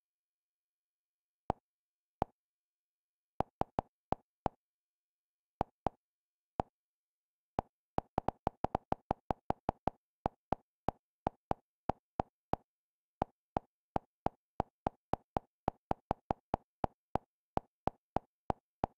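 Kodi's interface navigation sounds: short, identical clicks, one for each step through the on-screen keyboard and menu list. A few come scattered at first, then a quick run about eight seconds in, then a steady two or so a second as the add-on list is scrolled.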